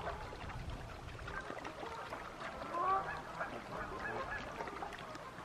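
Geese honking, a run of short overlapping calls from several birds squabbling and chasing one another.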